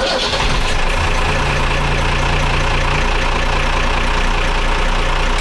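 A trawler's main diesel engine starting up abruptly and then running steadily at idle. The start does not blow the newly fitted 250-amp fuse on the engine start bank.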